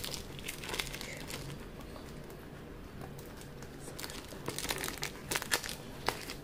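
Masking tape and paper wrapping crinkling and tearing as they are peeled off a cardboard tube. The crackles come scattered, with a quieter stretch in the middle and a busier run of them a little past two thirds of the way through.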